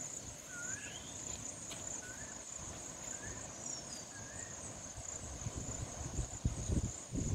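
Steady high-pitched insect drone, with several short bird chirps over it in the first few seconds. Low rumbling thumps come in near the end.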